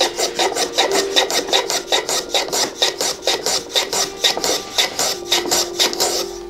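Hand tool scraping across wood in quick, short, even strokes, about five or six a second, stopping shortly before the end.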